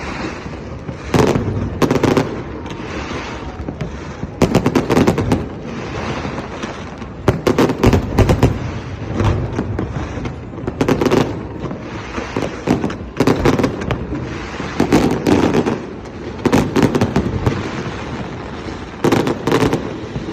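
Fireworks display going off: clusters of sharp bangs and booms every second or two over continuous crackling.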